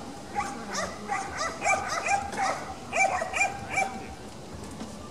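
Dog barking in a rapid run of short, high-pitched barks, about three a second, stopping about four seconds in.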